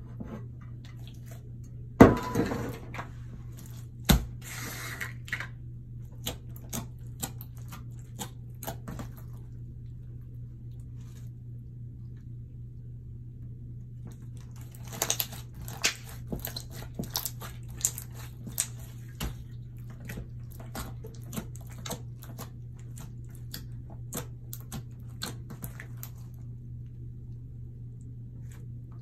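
Slime being squished and mixed by hand, making sticky clicks and pops in two spells with a pause between. There is a sharp knock about two seconds in and another about two seconds later, over a steady low hum.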